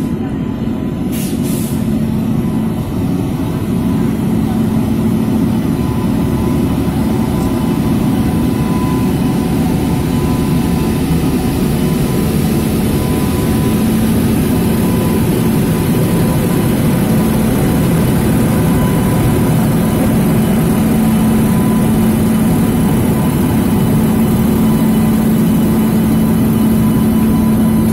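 Indian Railways electric locomotive moving slowly past at close range on flooded track. It gives a steady machinery hum with a low tone and a fainter higher whine, and grows slowly louder as it draws alongside.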